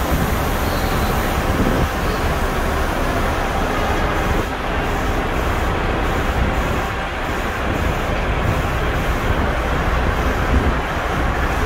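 Bus terminal traffic noise: bus engines running with a steady low rumble under a constant wash of traffic sound.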